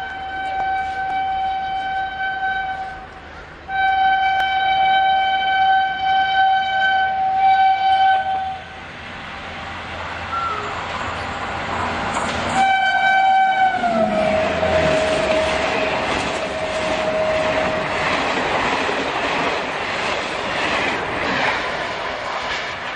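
A WAP-7 electric locomotive sounds its horn in long blasts as it approaches. The last blast drops in pitch as the engine passes at speed, and then the ICF coaches of the Rajdhani rush past with a steady rolling rumble and clickety-clack of wheels over the rail joints.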